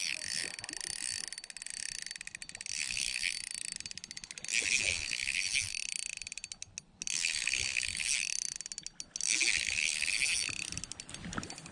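A spinning reel is wound in several bouts, each a couple of seconds long with short pauses between them, its gears making a rapid fine ticking. It is cranking against a hooked ide being played in.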